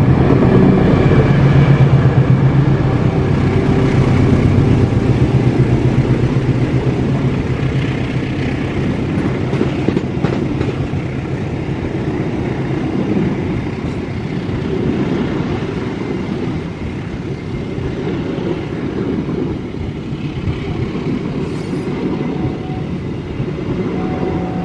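A departing passenger train passing close by: the diesel locomotive's engine goes by with a steady low drone in the first few seconds, then the coaches roll past with a continuous rumble on the rails that slowly grows quieter.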